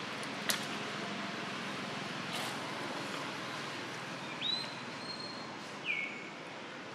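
Steady outdoor background hiss with two thin, high whistled bird calls. The first rises sharply and then holds for about a second, starting about four seconds in; the second is short and falling, near the end. A single sharp click comes about half a second in.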